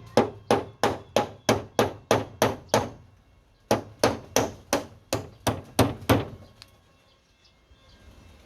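Hammer blows, about three a second, in two runs of roughly ten strokes each with a short pause between them.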